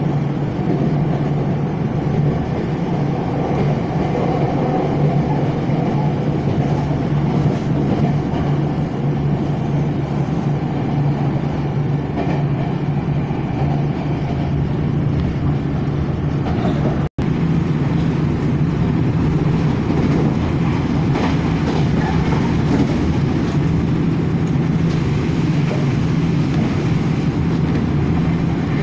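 Nankai Koya Line train running at speed, heard from inside the passenger car: steady running noise of wheels on rail with a low hum. The sound cuts out for an instant about two-thirds of the way through.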